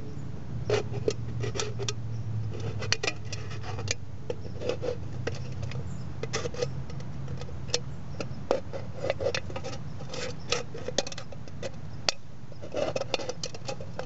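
Knife blade cutting around a thin aluminium Foster's beer can: irregular metallic clicks, scrapes and crinkles as the blade pierces and tears the can wall.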